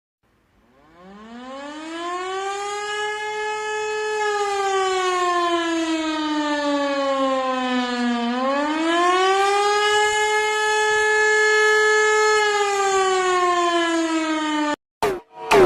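Civil defence siren winding up from silence and then wailing: its pitch rises, falls slowly, rises again and holds, then begins to fall before it cuts off abruptly near the end. Short sound-effect blips follow the cutoff.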